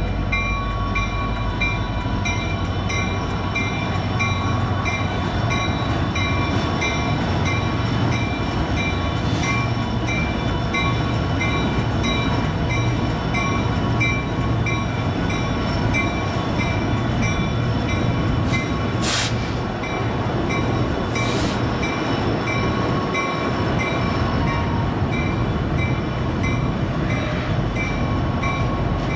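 CN freight train rolling steadily past, its railcars making a continuous rumble as they cross a river bridge, with a faint high ringing that pulses in an even rhythm.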